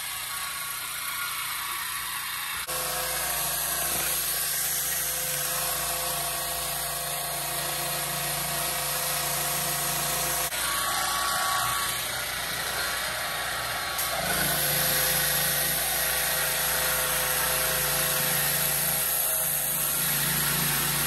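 Pressure washer running, its wand spraying water over a golf cart's roof and windshield: a steady hiss of spray over a steady motor hum. It changes abruptly a few times and is louder from about two-thirds of the way in.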